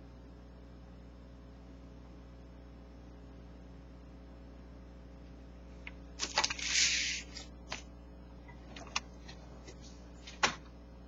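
Steady low hum, then about six seconds in a short rustle and crackle of the paper sales circular being handled, followed by a few sharp paper crackles, the loudest near the end.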